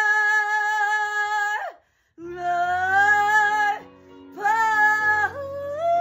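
A woman's voice holds a long high sung note that cuts off just before two seconds in. After a brief silence, low accompaniment chords come in under more held sung notes without words.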